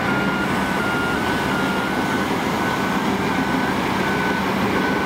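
Bulldozers' diesel engines running under load, with backup alarms beeping over them; two alarms at slightly different pitches overlap, out of step with each other.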